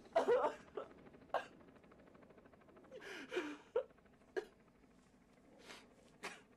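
A man crying: short, uneven gasping sobs and sniffling breaths, about seven in all, the strongest near the start.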